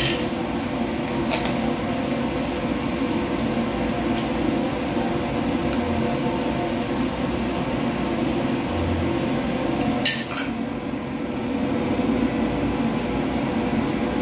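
Steady hum of running kitchen equipment, such as a fan or appliance motor, with a few short knocks, the loudest about ten seconds in.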